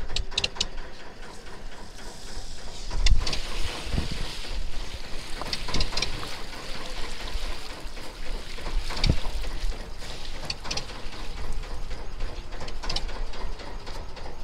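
Gill net being hauled by hand aboard a small fishing boat: water splashing and dripping with wind on the microphone, and a handful of sharp knocks, the loudest about three seconds in.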